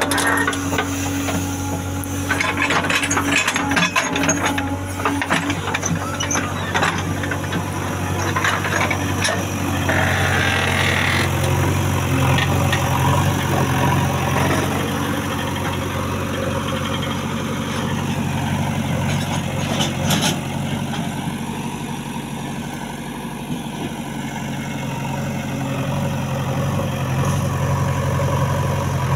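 JCB 3DX backhoe loader's diesel engine running steadily, with a run of metallic knocks and rattles over the first several seconds and a single knock about twenty seconds in.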